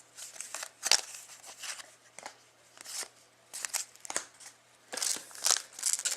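Trading cards being handled: slid, flicked and laid down one after another as a pack is sorted, giving short, sharp papery swishes and taps at irregular intervals, more of them close together near the end.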